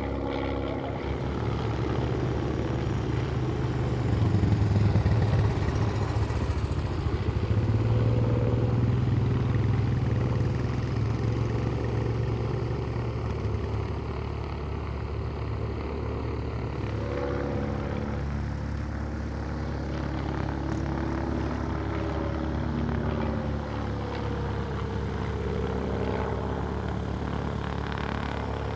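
Klemm 35D light aircraft's piston engine and propeller running steadily. It grows louder about four seconds in and eases off after about twelve seconds, and later the engine note rises and falls a little.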